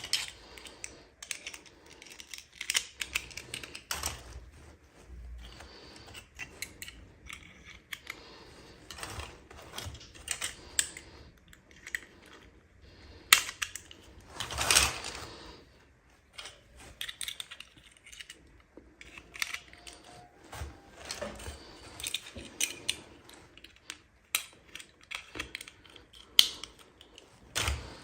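Small plastic toy pieces and packaging being handled: irregular clicks, taps and rustles, with a longer rustle about halfway through.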